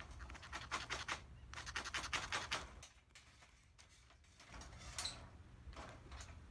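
Faint scratching and clicking: a quick run of small scrapes and clicks for about three seconds, a pause, then a few more near the end.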